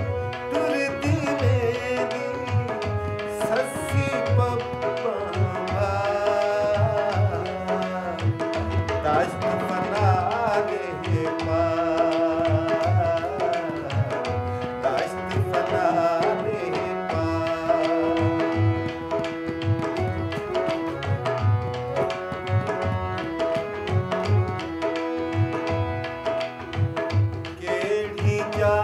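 A man singing a Saraiki poem to harmonium accompaniment, the reed instrument holding steady chords under his voice, with a regular hand-drum beat underneath.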